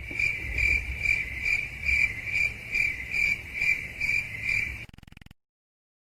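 Crickets chirping sound effect: a high chirp repeating evenly about twice a second, some eleven chirps, cutting off about five seconds in.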